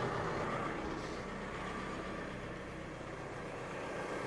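New Holland T5 140 tractor's diesel engine idling steadily.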